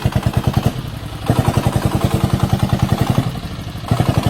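Diesel engine of a homemade farm vehicle running with an even, thudding beat, getting louder and easing off twice, about a second in and again about three seconds in.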